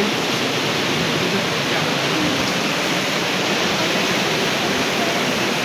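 Waterfall cascading over rocks close by: a loud, steady rush of water.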